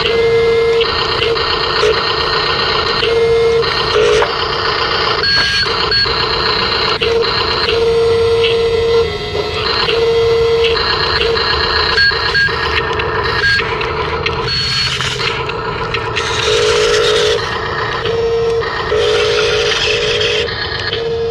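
Small electric motors and plastic gearboxes of RC toy construction machines whirring, starting and stopping in short spells, with a steady electronic beep switching on and off many times.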